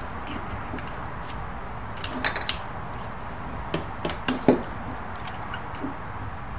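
Small clicks and knocks of metal and plastic tripod head parts being handled and fitted together by hand, a few about two seconds in and more around four seconds in, the sharpest knock about four and a half seconds in, over a steady low hum.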